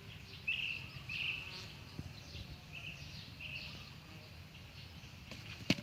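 Birds chirping in short repeated calls, several times, over steady outdoor background noise, with one sharp click near the end.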